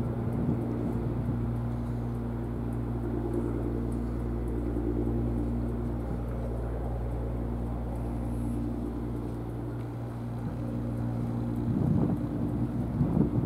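Steady low engine drone, a constant hum on several low pitches, easing slightly about ten seconds in. Near the end, wind gusts buffet the microphone.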